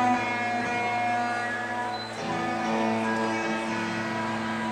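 Live rock band's electric guitars ringing out held, sustained chords over a low steady drone, heard on an audience recording. A fresh chord comes in a little past two seconds in.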